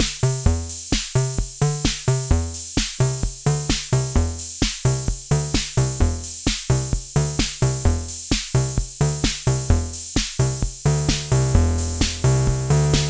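Erica Synths Bassline analog bass synthesizer playing a sequenced pattern of short pitched notes, about four a second, over a drum-machine beat. About 11 s in, the notes turn lower, fuller and longer.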